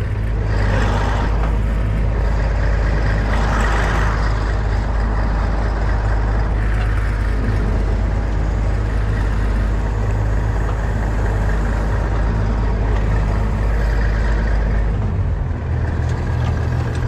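A farm vehicle's diesel engine running steadily, its note changing about fifteen seconds in.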